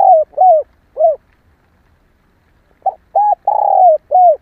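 Female spotted dove cooing. One phrase of short, rounded coos ends about a second in. After a pause of nearly two seconds, a second phrase of four coos begins near three seconds in; its third note is the longest.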